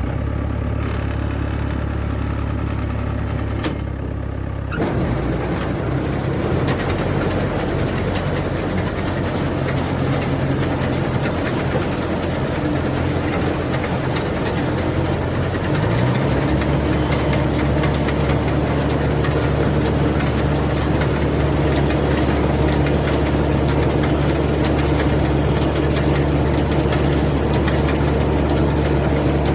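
Rice combine harvester's engine running steadily, joined about five seconds in by a louder, noisier machinery rush. About halfway through the engine rises in pitch to a higher speed and holds there.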